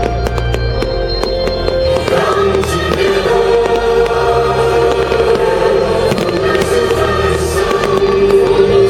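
Fireworks bursting and crackling in many quick sharp pops, over loud music with sustained choir-like chords.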